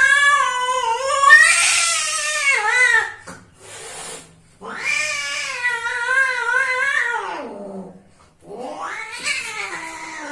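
Cats mating, with loud caterwauling: three long wavering yowls, the first two rising and falling in pitch, and a short fainter call between the first and second.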